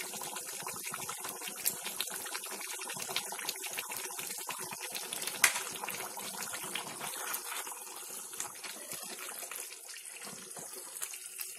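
Chicken curry gravy simmering in a frying pan, with a steady bubbling and sizzling made up of many small pops. There is a single sharp click about five seconds in.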